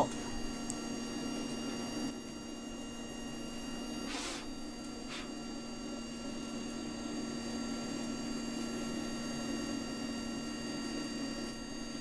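Steady hum of a coal forge's air blower while steel heats in the fire, with a short rustle about four seconds in and a fainter one a second later.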